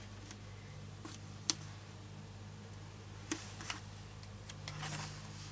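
Paper handling: a small sticker peeled and pressed onto a planner page, giving a few light clicks and taps, the sharpest about one and a half seconds in, over a faint low hum.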